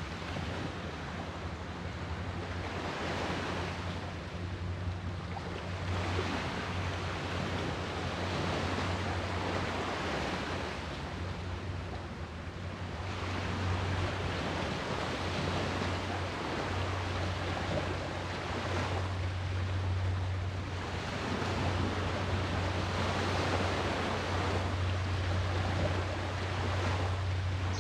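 Sea waves breaking and washing in, the surf rising and falling in surges every few seconds, over a steady low hum.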